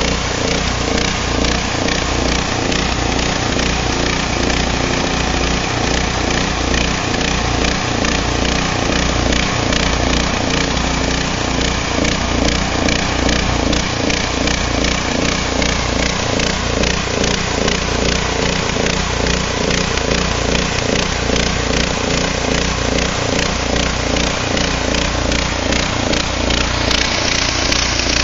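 Portable band sawmill running steadily, its band-saw blade cutting a plank from a log.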